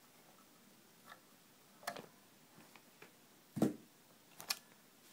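A handful of separate small clicks and taps from a screwdriver and clamp tool working standoff screws off a motherboard, the loudest a knock about three and a half seconds in.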